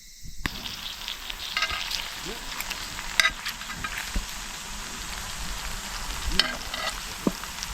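Meat sizzling on a hot iron griddle plate: a steady hiss with scattered sharp pops, cutting in abruptly about half a second in.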